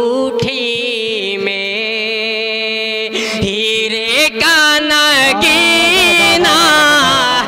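A man singing a naat, an Urdu devotional poem, into a microphone in a chanting style. He holds long steady notes, then about four seconds in rises into louder, ornamented phrases with a wavering vibrato.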